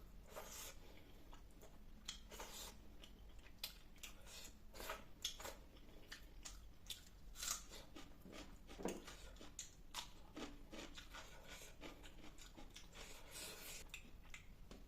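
Close-up eating sounds of a person chewing fish curry with rice and salad: soft, irregular chewing and mouth smacks, with a few sharper clicks.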